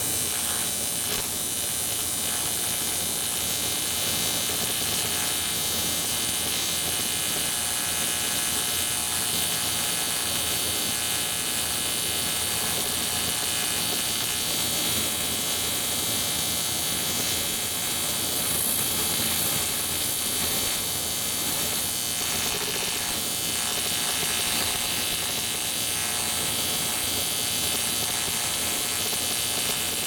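Gas-shielded (TIG) welding arc buzzing steadily on a shovelhead engine case, adding weld to build up a melted boss.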